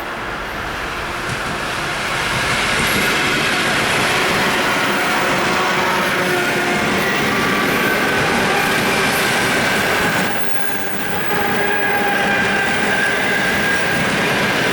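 ED4M electric multiple unit running by on the track: a steady, loud rumble of wheels with clickety-clack over the rail joints and a few thin steady tones over it. It grows louder over the first two seconds and dips briefly about ten seconds in.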